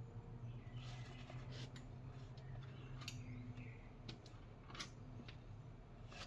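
Faint scattered clicks and light scrapes of metal hand tools being handled and tried on fasteners, over a low steady hum.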